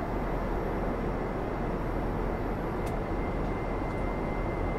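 Steady rushing cabin noise aboard an Airbus A350, a dense even roar, with one faint click about three seconds in.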